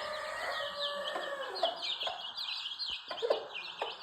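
Chickens clucking: a drawn-out call in the first second and a half, then short single clucks. Rapid high chirping of small birds runs underneath.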